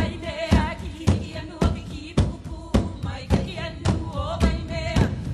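Music with a heavy, steady drum beat, about two strikes a second, and a voice chanting over it.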